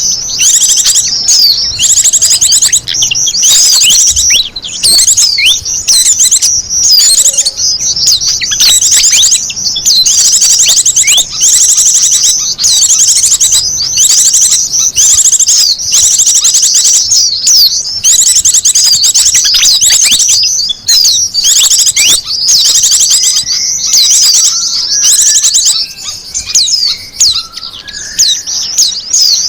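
Bird-luring recording of small wild birds: a dense, loud chorus of high, rapid chirps and trills, repeating without pause, with a few softer, lower calls joining near the end.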